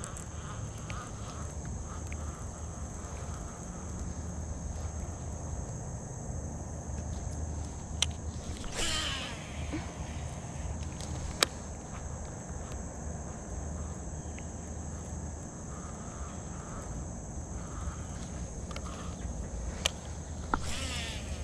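Baitcasting reel cast twice: each time the spool whirs briefly as line pays out, falling in pitch, about nine seconds in and again near the end. A few sharp clicks stand out between the casts, over a steady high insect buzz.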